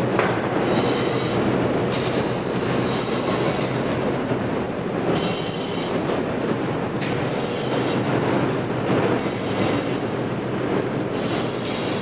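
Steady, loud machinery noise with a low hum, the running equipment of a wastewater treatment plant's basement pipe and valve gallery. A higher hiss swells and fades every couple of seconds over it.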